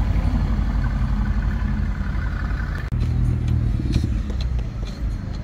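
Mercedes-AMG GT's twin-turbo V8 running with a deep note as the car pulls past at low speed. About three seconds in the sound cuts abruptly to a second car's engine running, with a few sharp clicks over it.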